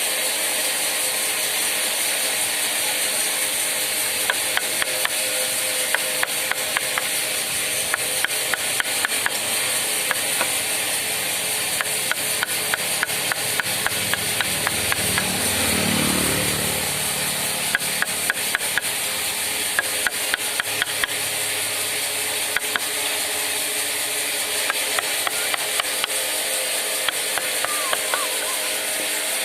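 Wood being worked by hand with carving tools: irregular sharp clicks and taps, some in quick runs, over a steady hiss, with a brief low swell about halfway through.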